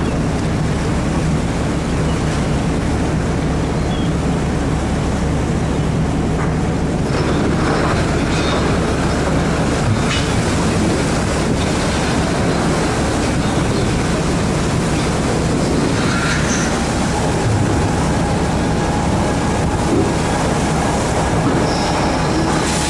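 Fishing boat's engine running steadily: a constant low drone under an even rushing noise of wind and sea.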